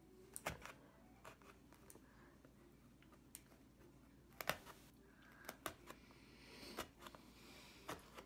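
Scissors snipping and poking through the cardboard of an advent calendar to cut open one of its doors: faint, irregular clicks and crunches roughly a second apart, the sharpest about halfway through.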